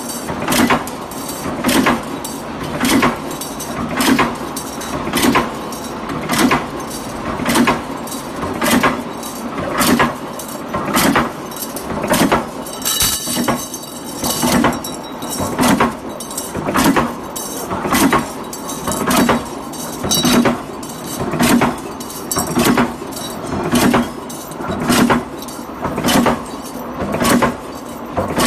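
J23-63T 63-ton mechanical punch press in an automatic TDF/TDC duct-corner punching line, cycling steadily about once a second. Each stroke is a sharp metallic bang as a sheet-steel duct corner is punched, with metallic clinking around it.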